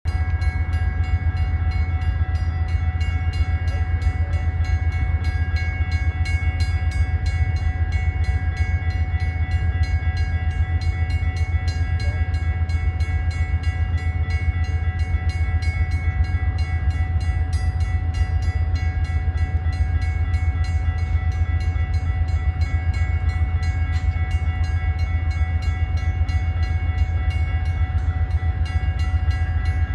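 Amtrak GE P42DC diesel locomotive standing at the station with its engine running, a steady drone with a fast pulsing beat and a few steady high tones over it.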